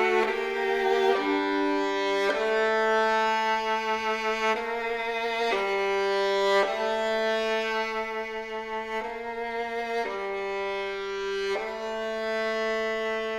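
Solo violin playing slow, sustained bowed notes over a held low note. The loudness eases off toward the end.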